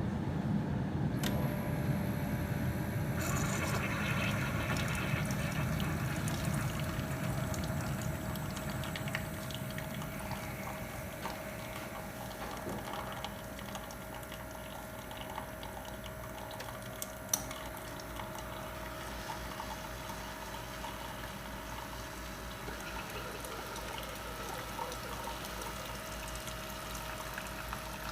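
Keurig single-serve coffee maker brewing: a steady pump hum while hot coffee streams into a mug, louder for the first several seconds.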